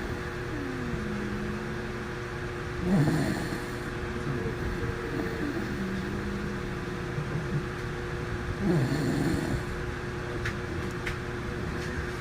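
Dog snoring in its sleep: two loud snores about six seconds apart, with quieter drawn-out breaths between, over a steady background hum.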